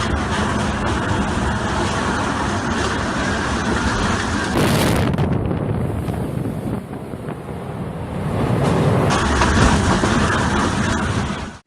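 Strong wind from the tornado, a loud rushing noise buffeting the microphone. The sound shifts abruptly about four and a half and nine seconds in, then cuts off suddenly.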